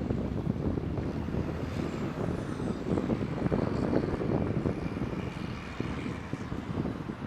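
Heavy diesel engines of construction machinery running, a steady low rumble that eases slightly near the end.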